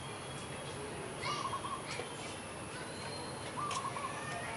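Birds calling in the garden over a steady outdoor background hiss: one bird repeats the same short call about every two and a half seconds, with a few thin high chirps in between.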